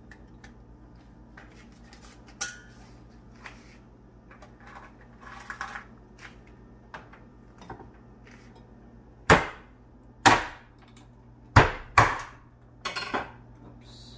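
Knife chopping blue crabs in half: a few light clicks, then four sharp knocks in two pairs in the second half and a softer couple of knocks just after.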